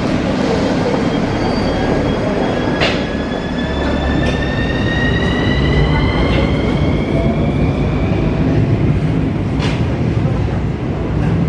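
Electric metro train pulling out of the station and accelerating: a steady rumble under a multi-toned electric motor whine that rises in pitch, with two sharp clacks from the wheels on the rails.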